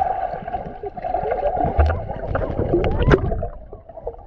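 Seawater splashing and sloshing close to the microphone around a swimmer, with scattered sharp clicks and knocks. It dies down briefly near the end.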